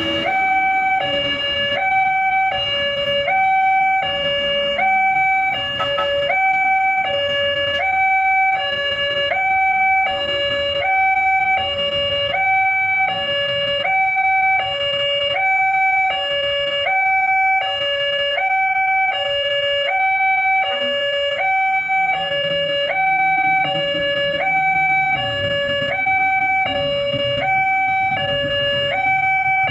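Indonesian railway level-crossing warning alarm from the loudspeaker on the signal mast: an electronic two-tone chime alternating evenly between a higher and a lower note, warning that a train is coming while the lights flash and the barrier is down.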